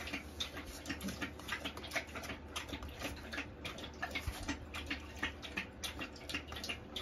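Bull terrier puppies' claws clicking and scratching on the wooden floor and edge board of a whelping box, as a run of quick, irregular ticks several times a second.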